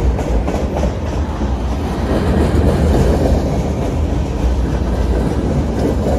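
Container-loaded railroad flatcars rolling past close by: a steady rumble of steel wheels on the rails, with occasional wheel clicks.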